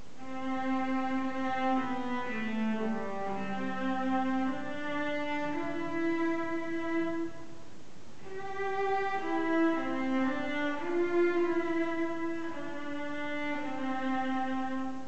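Cello played with the bow: a melody of held notes, mostly in the cello's middle-low range, in two phrases with a short break about halfway through.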